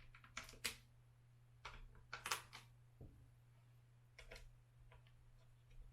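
Scattered light clicks and taps of small metal bolts and tools being handled while the rear bumper bolts are put in, over a faint steady low hum.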